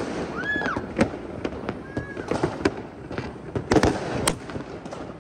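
Aerial fireworks going off: a run of sharp bangs and pops at uneven intervals, the loudest about a second in and around four seconds in. A short whistle rises and falls about half a second in.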